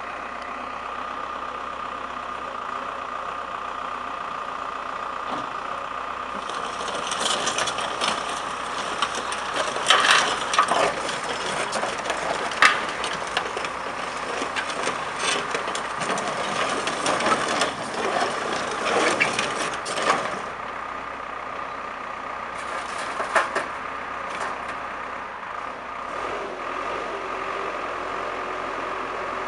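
Komatsu PC71-7 excavator's diesel engine running steadily with a constant whine, while the boom and arm are worked. For about thirteen seconds in the middle, and briefly again a few seconds later, a louder rushing noise comes in with sharp knocks and clunks.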